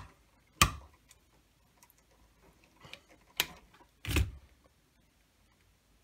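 Sharp clicks from wire strippers being worked and handled. There is one click under a second in, faint ticks after it, another click about three and a half seconds in, and a duller knock just after four seconds.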